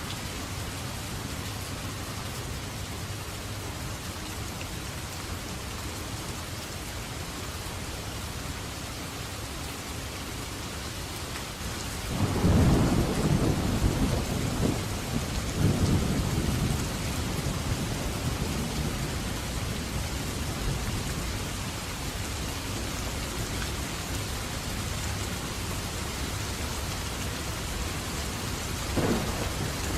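Thunderstorm: steady heavy rain, with a roll of thunder breaking in about twelve seconds in and rumbling in two swells for several seconds before fading back into the rain. A short louder burst of thunder comes near the end.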